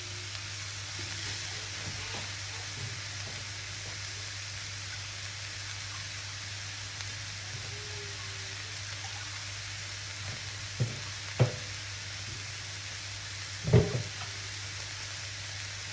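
Sliced mushrooms and onions sizzling steadily in a hot frying pan as they are stirred with a wooden spatula. Three knocks of the spatula against the pan come in the second half, the last the loudest.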